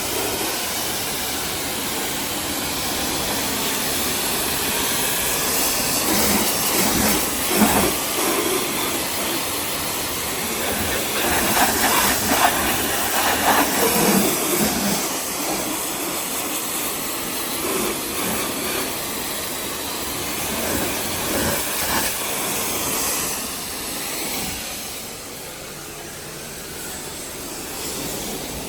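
Pressure washer jet spraying against a car's bodywork: a steady, loud hiss of water with louder, uneven spells as the spray moves, easing off near the end.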